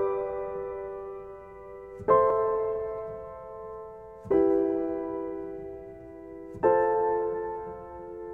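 Slow background piano music: a soft chord struck about every two seconds and left to fade before the next.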